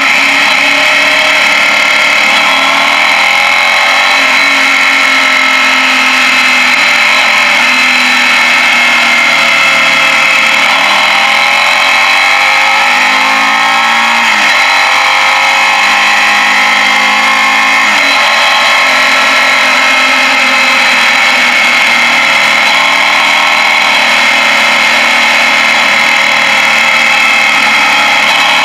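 Suzuki Gladius 650 V-twin motorcycle engine running under way, heard through a helmet-mounted camera. Its pitch climbs and drops back sharply twice around the middle.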